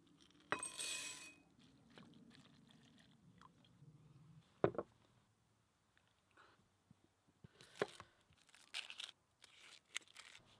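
Red kidney beans poured into a glass measuring cup, a short rattle with a faint glassy ring about a second in; a single knock a little before halfway; then crisp, papery crackling near the end as the dry skin is peeled off an onion.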